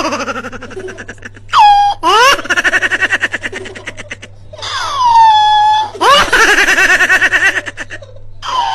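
High-pitched laughing in several long fits, rapid ha-ha pulses broken by rising and falling squeals.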